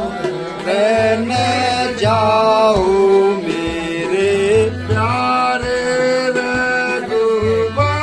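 A man singing a Ramlila verse in a held, bending melody, accompanied by a harmonium and a tabla whose low drum strokes keep a steady beat.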